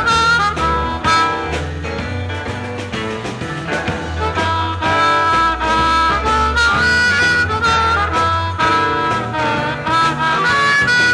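Blues harmonica playing held and bending notes over a live rock band's bass, drums and guitar.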